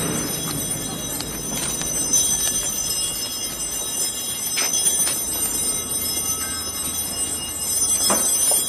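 Bells ringing steadily, with a few louder strokes.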